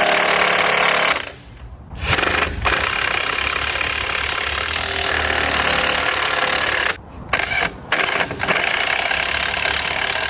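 Impact wrench hammering in long loud bursts, stopping briefly about a second in and again around seven to eight seconds in, running the lug nuts onto a refitted wheel.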